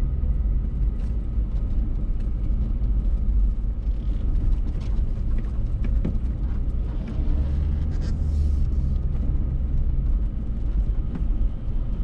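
Motor vehicle driving, a steady low rumble with scattered small knocks and rattles.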